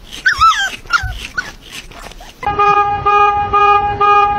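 A small dog whines and yelps in short, high, wavering cries. About two and a half seconds in, a car horn sounds in four steady honks, about two a second.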